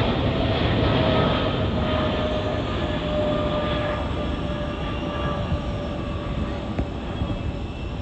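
Jet airliner's engines at takeoff power: a loud, broad rumble with steady whining tones that slowly fades as the aircraft climbs away.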